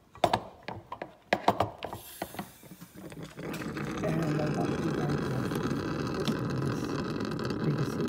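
A few sharp clicks and knocks of handling the lines and fittings. From about three and a half seconds comes a steady rush of dry nitrogen blown through a refrigerator's sealed-system lines and out the open suction line, purging it to clear a restricted capillary tube.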